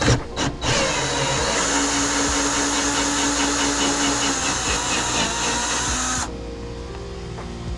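An electric power tool's motor running under load for about five and a half seconds, then cutting off suddenly, with background music underneath.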